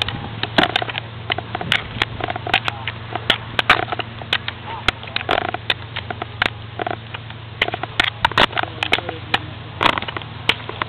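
Knocks and rustling from a handheld camera being swung about, with gusty noise on the microphone, over a steady low hum.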